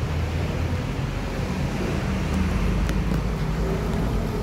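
Steady low rumble of a motor running, with a few faint small clicks about three seconds in.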